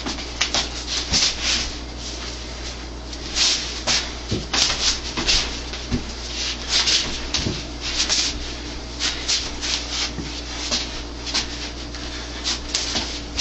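Arms and sleeves brushing and rubbing against each other in sticky-hands (chi sao) practice: irregular short swishes, over a steady low hum.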